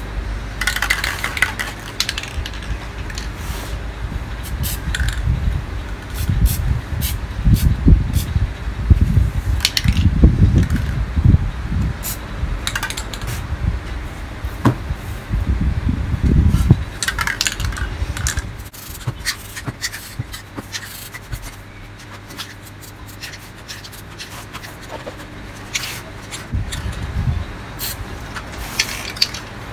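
Short hisses from an aerosol spray paint can, among scraping, tapping and rustling as the cans and the painted poster board are handled. A low rumble runs through the middle stretch and then drops away.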